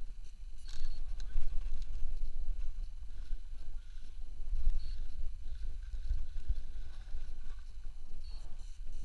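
Wind buffeting the camera microphone: a low rumble that rises and falls unevenly, with a few faint, short, high chirps over it.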